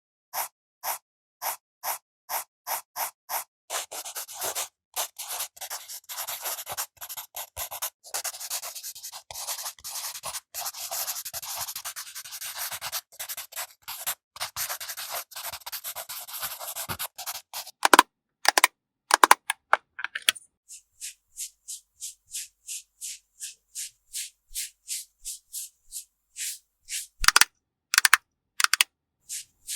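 Makeup being applied to the skin of a long bottle gourd: quick, even brushing strokes about three a second, then a long stretch of continuous scratchy rubbing. After that come a few louder strokes, and the even strokes resume.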